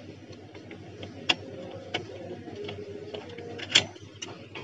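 Several light metallic clicks, the loudest near the end, as a processor is seated in the motherboard's LGA775 socket and the socket's metal load plate and retention lever are pressed shut.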